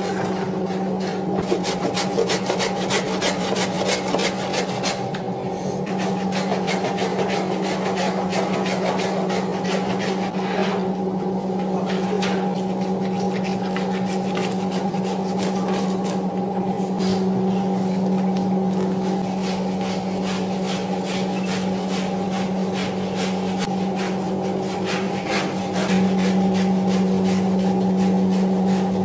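Rapid rasping strokes of a large blade cutting into a giant bluefin tuna, over a steady low machine hum. The strokes pause briefly a few times.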